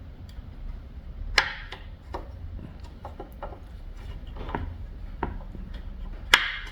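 Small clicks and knocks of a rifle bolt and its parts being handled in a bolt service station as the bolt is seated and turned to lock in. Two sharper clicks stand out, about a second and a half in and near the end.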